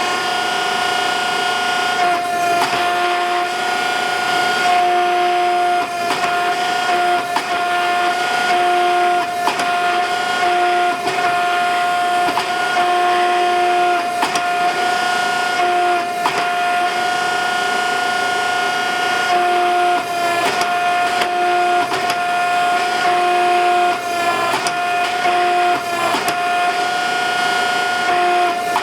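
Electric motor and hydraulic pump of a 12-ton forging press running with a steady whine, joined every second or two by a lower hum, with scattered sharp clicks and knocks.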